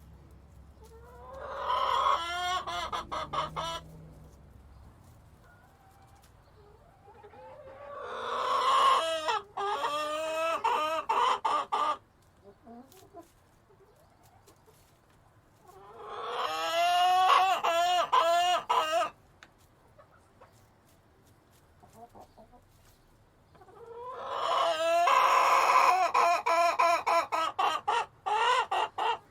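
Rooster crowing four times, each crow lasting about three seconds, roughly seven seconds apart.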